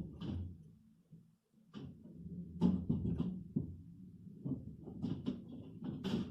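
A series of irregular knocks and clunks, about six in the space of a few seconds, over a low rumble.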